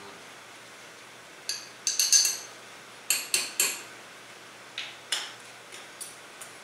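A table knife clinking against a glass jar and plate: about a dozen short, sharp clinks, the loudest in quick groups about two seconds and three and a half seconds in, then a few lighter taps.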